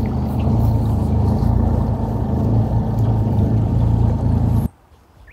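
Boat's outboard motor running steadily at speed, a loud low drone that cuts off abruptly near the end.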